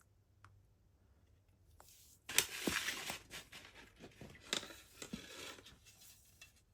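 CD packaging being handled: crinkling and rustling with sharp little ticks, in uneven bursts from about two seconds in until about six seconds in.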